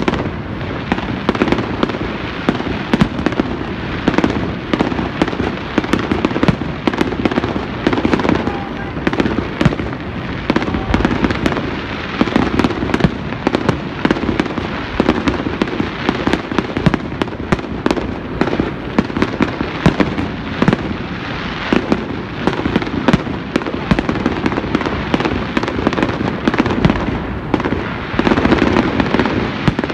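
Aerial fireworks bursting in a dense, continuous barrage of overlapping sharp bangs and crackle.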